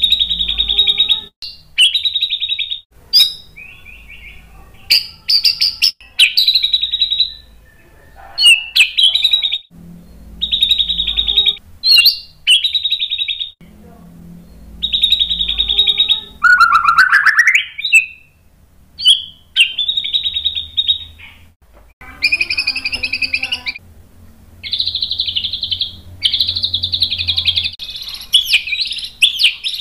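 Male white-rumped shama singing: loud whistled phrases of about a second each, separated by short pauses. About seventeen seconds in comes one rising whistle, and near the end the song runs on more continuously.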